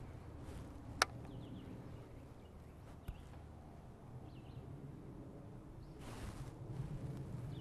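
Quiet outdoor ambience with a low rumble and a few faint, brief bird chirps, broken by a sharp click about a second in and a softer click about three seconds in.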